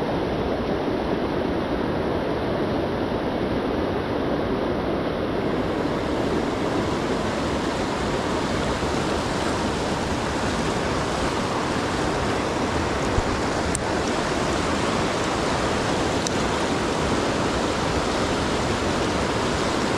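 Steady rush of a river's flowing current, with one brief click about thirteen seconds in.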